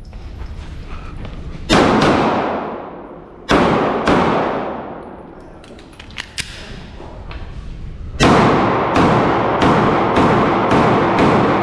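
Compact carry pistol firing: two quick pairs of shots in the first four seconds, then, after a pause, a fast string of about seven shots. Each shot echoes off the walls of an indoor range.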